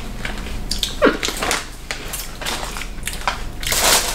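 Crunchy wheat cracker being chewed and plastic snack wrappers crinkling in irregular bursts, with a sharper louder crackle about a second in.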